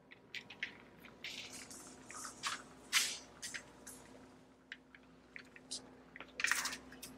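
Ten-inch putty knife blade dragged through wet epoxy on a countertop: irregular short wet scraping, squishing strokes, the loudest about three seconds in.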